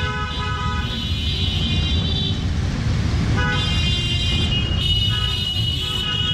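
A procession of motorcycles rolling past, many engines running together in a deep rumble, with horns sounding several long blasts over it.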